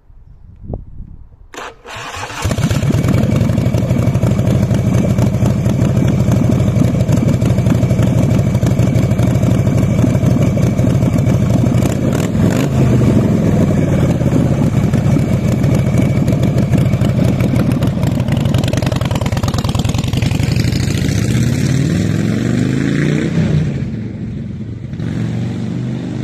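Custom chopper's V-twin engine cranking and catching about two seconds in, then idling loudly with a lumpy beat. Near the end the bike pulls away: the engine note rises several times through the gears and fades.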